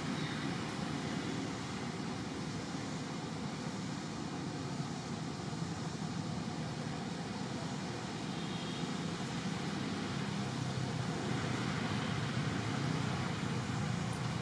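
Steady outdoor background rumble and hiss, with no distinct event standing out.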